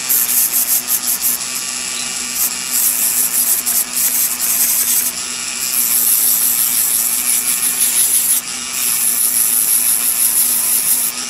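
Electric nail drill spinning a white cleaning brush bit against a carbide barrel bit to clean it. A steady motor hum runs under a scratchy rubbing hiss that comes in four stretches, with short breaks about two, five and eight and a half seconds in.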